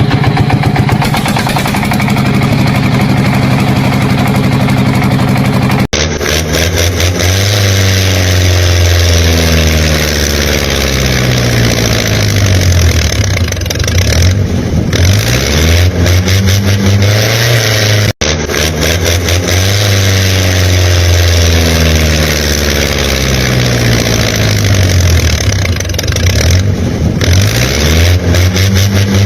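Engine running with its revs repeatedly rising and falling, broken by two abrupt cuts about six and eighteen seconds in, like a spliced engine sound loop.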